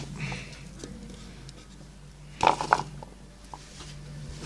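Sliced carrots being laid by hand over meat and cabbage in a clay pot: a short rustling clatter about two and a half seconds in, with a few lighter clicks, over a low steady hum.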